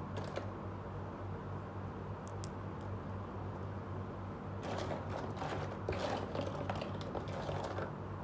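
Small plastic toy spatulas handled, with light clicks and rustling from about halfway through, over a steady low hum.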